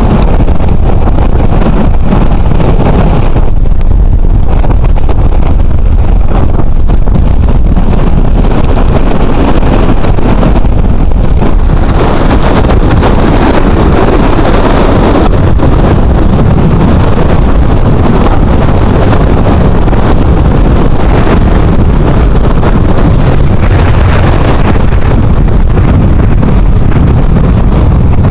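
Hurricane wind blowing hard across the microphone, a loud, unbroken rumbling noise, with heavy surf breaking beneath it.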